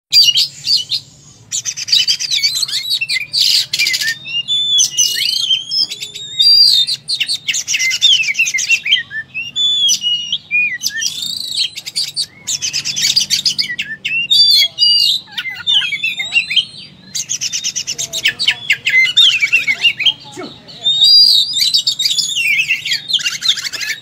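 Oriental magpie-robin singing a loud, continuous, varied song in full fighting form, pouring out its repertoire. Quick gliding whistles alternate every few seconds with dense, rapid rattling trills.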